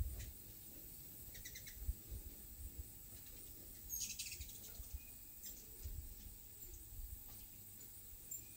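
Hummingbirds giving short high chirps and chittering calls as they chase each other, with the densest burst of calls about four seconds in. Low wind rumble on the microphone underneath.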